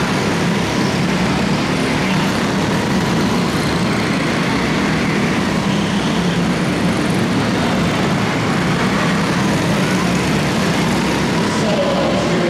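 Several quarter midget race cars with small single-cylinder Honda engines running together as they lap the track. It is a loud, steady drone with slight rises and falls in pitch.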